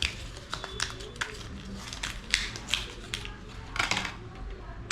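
Irregular small clicks and taps of tools and small parts being handled while a smartphone is taken apart for repair, a dozen or so sharp ticks, the loudest right at the end.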